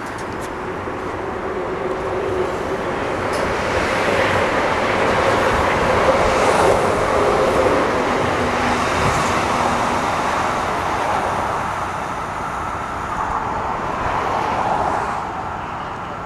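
Siemens-Duewag U2 light rail train pulling away from the platform: its wheels and motors build up as the cars pass close by, then fade as the last car goes.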